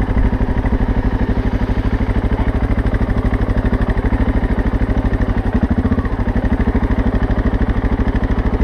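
BMW 650 GS single-cylinder engine running at a steady low speed, its firing pulses coming in an even, rapid beat.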